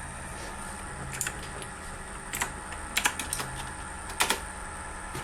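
Desktop PC running with a steady hum and a low tone that comes and goes every half second or so: the unexplained noise that persists with the graphics card removed, which the owner suspects is coming from the liquid-cooling radiator. A few sharp clicks sound over it, scattered through the middle.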